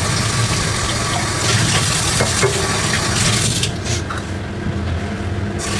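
Kitchen tap running water into a sink, a steady rushing that thins out for a couple of seconds after the middle.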